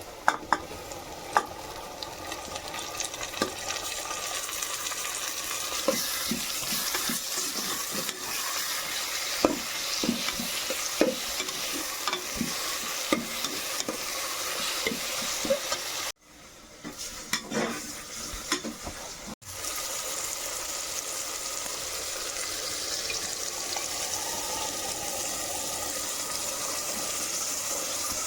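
Chicken curry sizzling as it fries in a pan, with a metal spoon scraping and clinking against the pan as it is stirred. The sound drops away abruptly about halfway through, returns briefly with a few clinks, and then the steady sizzle carries on.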